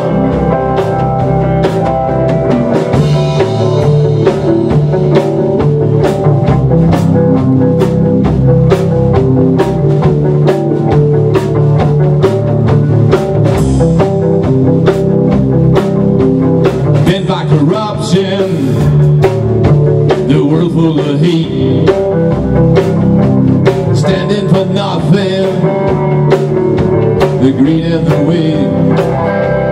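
Live rock band playing with electric guitar and a drum kit keeping a steady beat, about two drum strokes a second; no lyrics are picked out.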